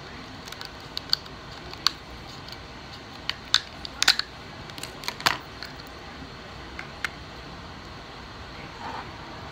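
Kitchen scissors snipping through a cooked crab leg's shell, heard as a run of sharp clicks and cracks that is busiest around four to five seconds in.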